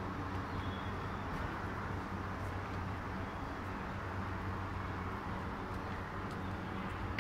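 Steady street background noise with a constant low hum, like motor traffic or an engine running somewhere near.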